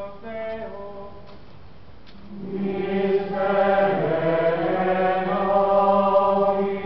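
A Latin litany chanted in alternation. A single voice finishes its chanted line in the first second, then, after a short pause, many voices answer together with a sustained unison response that lasts until the end.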